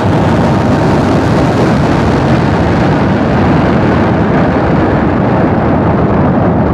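Falcon 9 first stage's nine Merlin 1D engines at full power just after liftoff: a loud, steady rocket rumble whose high hiss dulls over the last few seconds as the rocket climbs away.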